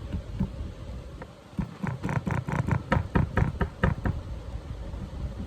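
Small chisel chipping at a plaster excavation block in quick repeated strikes, about five or six a second, with a short pause about a second and a half in.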